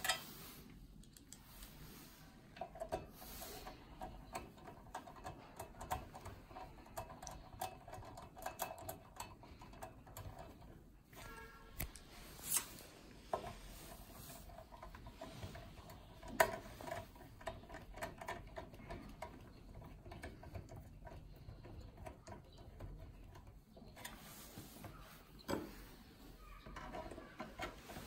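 Small clicks, taps and scrapes of a screwdriver turning screw terminals and of plastic connector parts being handled and pressed together, scattered irregularly, with a faint steady tone underneath.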